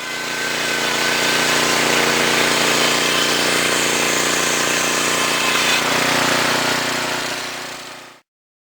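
Portable band sawmill running at full speed, its 10 hp gas engine driving the blade. The sound swells up at the start, holds steady and cuts off suddenly near the end.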